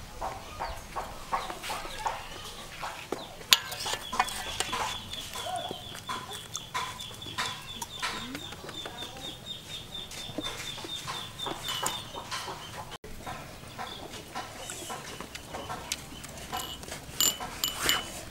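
Chickens clucking, with a metal spoon scraping and tapping on the shell of a roasted softshell turtle in short strokes.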